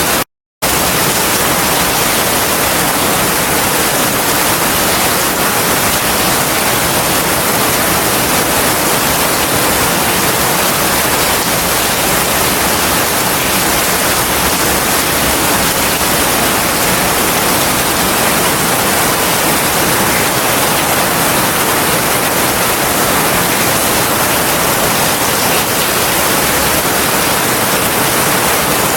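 Heavy rain falling steadily, an even hiss with no thunder. It cuts out completely for a fraction of a second just after the start.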